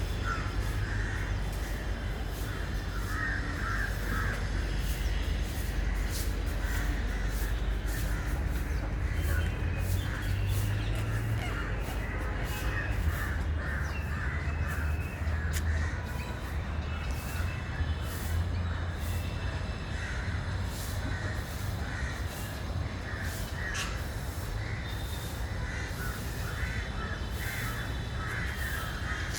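Many birds calling continuously, short harsh caw-like cries overlapping one another, over a steady low rumble.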